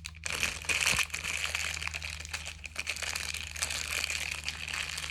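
Packaging crinkling and rustling in a steady run of small irregular crackles as it is handled and unwrapped.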